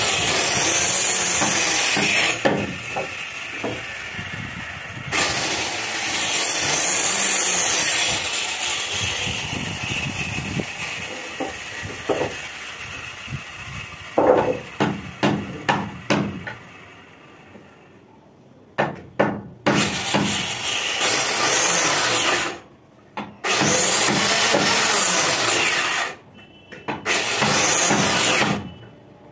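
Handheld electric circular saw cutting wooden window-frame timber in several long bursts with short pauses between cuts. Around the middle the saw dies away and there are a few sharp knocks of wood being handled.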